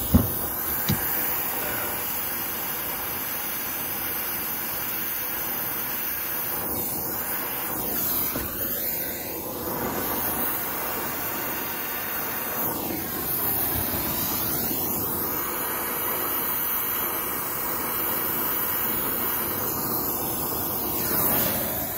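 Oxy-fuel brazing torch flame hissing steadily on a copper refrigerant line joint, its tone sweeping down and back up a few times as the flame is moved over the joint. A sharp click just at the start.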